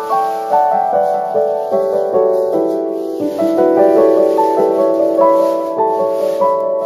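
Background piano music, a gentle melody of notes following one another in quick succession.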